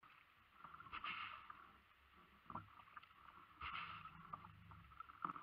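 Faint kayak paddle strokes in calm water: the blade swishes through the water about a second in and again near four seconds, with a few small clicks in between.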